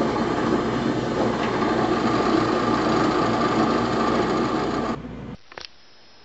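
Power drill running steadily as it drills out a lead weight set in a wooden piano key. It cuts off about five seconds in, leaving a quiet room with a few light clicks.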